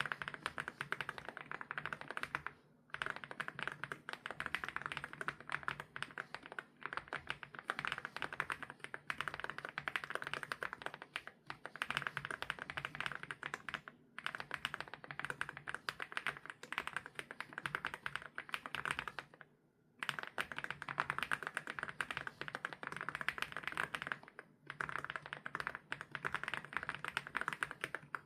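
Fast typing on an MCHOSE K99 mechanical keyboard with MOA-profile keycaps: a dense run of creamy keystrokes, broken by a few brief pauses.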